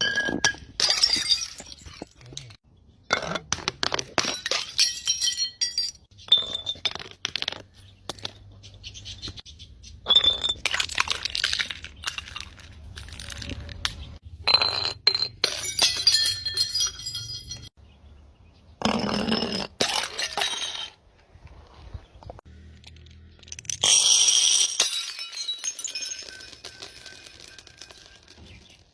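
Glass bottles being smashed and crushed: about six bursts of breaking and crunching glass a few seconds apart, each followed by ringing clinks of glass pieces.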